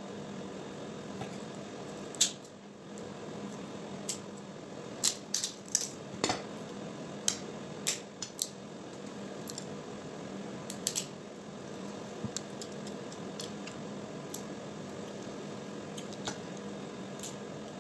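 Cooked crab shell being cracked and picked apart by hand: irregular small sharp clicks and snaps, a few louder, over a steady low hum.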